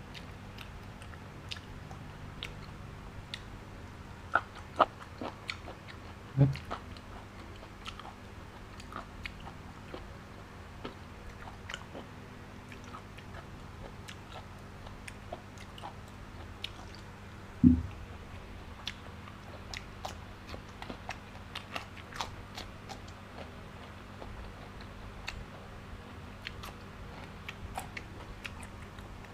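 Close-up mouth sounds of a man chewing raw beef: wet chewing with many small clicks and crunches. Two dull low thumps, a short one about six seconds in and a louder one near eighteen seconds.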